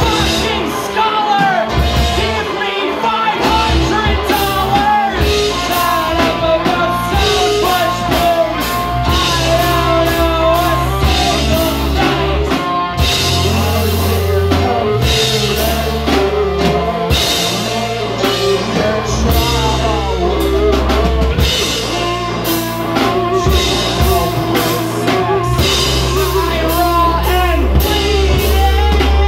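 Live rock band playing a song: lead vocal sung over electric guitars and a drum kit.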